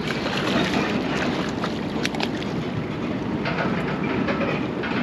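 Steady rumble of a fishing boat on open water, with wind buffeting the microphone and a few sharp clicks about two seconds in.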